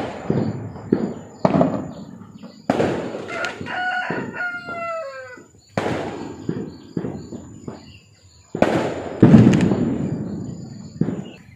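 Large paper firecrackers (mercon) going off in a string of sharp bangs with crackling tails, the loudest about three quarters of the way through. A rooster crows once, about a third of the way in, its call falling at the end.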